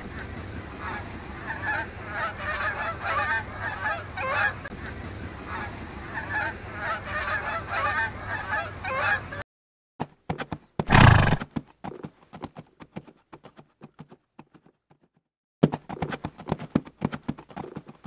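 A flock of Canada geese honking as they take off, many calls overlapping, for about nine seconds. It then cuts to horses: one loud short call from a horse, hoofbeats, a brief pause, then the hoofbeats of a galloping herd.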